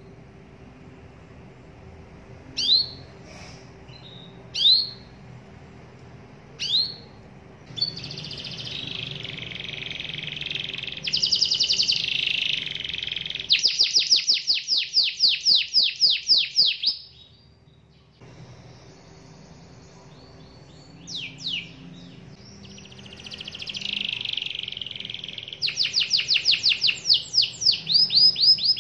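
Domestic canary singing: first a few single rising chirps a couple of seconds apart, then a long warbling song broken by fast rolling trills of rapidly repeated notes. After a pause of a few seconds and two more chirps, the song picks up again and ends on another fast trill.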